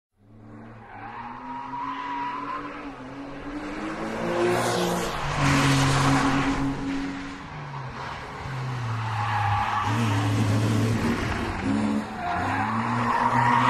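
Porsche 997 911 Carrera's flat-six engine revving up and down as the car is driven sideways round a track, its tyres squealing and skidding. The skid is loudest between about four and seven seconds in.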